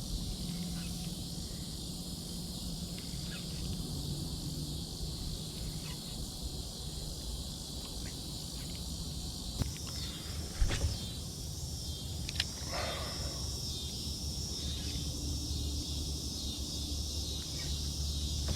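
Steady outdoor chorus of insects, a high even chirring, over a low rumble, with a few sharp knocks near the middle.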